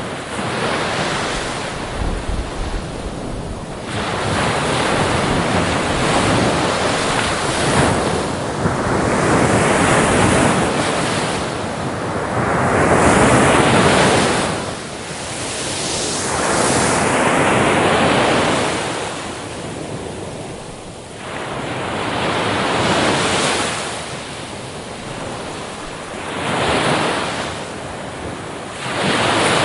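Sea waves breaking and washing on the shore, a rush of surf that swells and falls back in repeated surges every few seconds, with a wind-like hiss between them.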